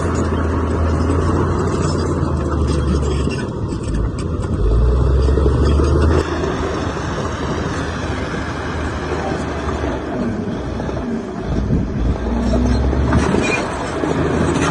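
Heavy diesel engine of earthmoving machinery running under changing load: a steady low drone that swells around five seconds in and eases again.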